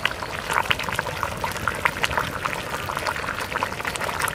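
Thick fish-head curry boiling in an earthenware pot, with a steady run of small irregular bubbling pops.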